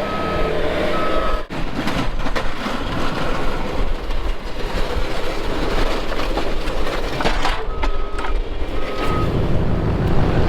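Backup alarm of snow-removal equipment beeping in short, even tones, three at the start and two more near 8 seconds, over steady heavy engine noise. A deep engine sound grows louder near the end.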